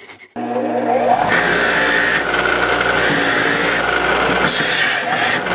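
Bench grinder with a wire wheel running and scrubbing rust off the shaft of a lawn tractor starter motor. It starts suddenly about half a second in, then runs steadily: a motor hum under a harsh scratching of wire on metal.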